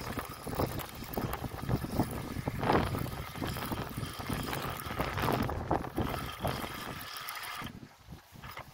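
Spinning reel being cranked fast to retrieve line with a hooked mullet, giving a busy mechanical rattle over wind rumble on the microphone. It stops abruptly near the end.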